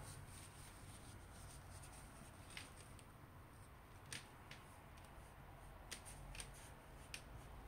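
Near silence with a few faint rustles and soft crackles: a tissue being dabbed and wiped over skin to clean off traces of clay mask.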